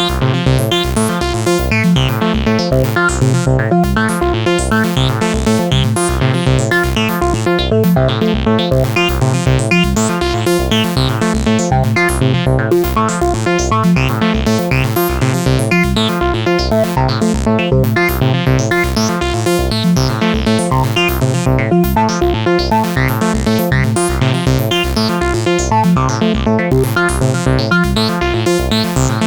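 Acid-style electronic synthesizer loop playing chords over a steady, fast repeating pulse.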